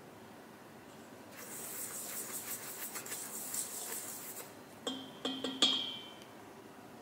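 A utensil stirring a dry flour mixture in a mixing bowl, a fast scratchy rustle, then three sharp taps on the bowl that ring briefly, the utensil being knocked clean.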